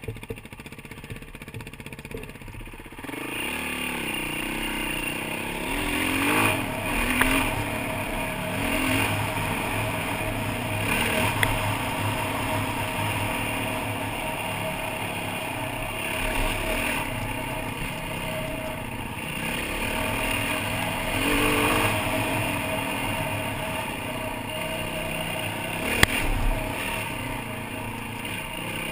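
Yamaha WR450 dirt bike's engine running while riding a bush trail, quieter at first and then picking up about three seconds in, its pitch rising and falling as the throttle opens and closes, with rushing noise over it. Near the end, one sharp knock.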